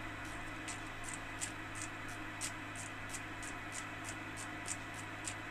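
Kenwood transceiver receiving no signal in FM: a steady hiss with a low hum underneath as it is tuned across the 70 cm band. Soft ticks come about three a second from the tuning knob being turned.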